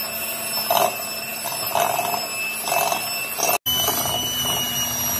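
Electric hand mixer running at steady speed with a high, even whine, its beaters whisking eggs and sugar in a glass bowl. The sound drops out for an instant about three and a half seconds in.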